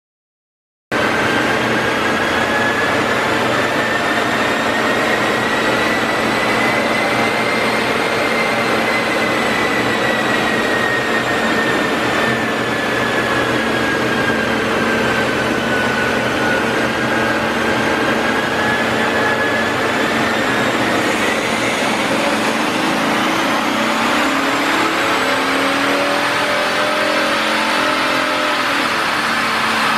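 BMW X6 M50d's tri-turbo 3.0-litre inline-six diesel running under load on a chassis dynamometer, the wheels driving the rollers, with a steady rush of noise and a whine that slowly rises and falls in pitch. Near the end the engine note climbs as the car pulls through the gear. The sound cuts in suddenly about a second in.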